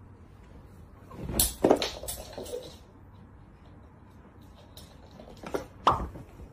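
Two clusters of knocks and clatters, one about a second and a half in and another near the end, over quiet room noise.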